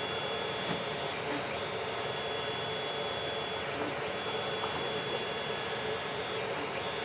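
Creality CR-10 3D printer running steadily in the room: a constant fan hum with a thin high whine that drops out and comes back several times as the motors work through the print.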